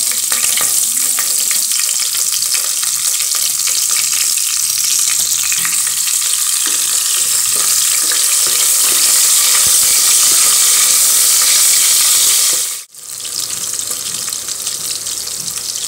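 Whole green chillies sizzling and crackling in hot oil and ghee with whole spices in the bottom of a pressure cooker, stirred with a wooden spoon. The frying breaks off for a moment near the end and resumes a little quieter.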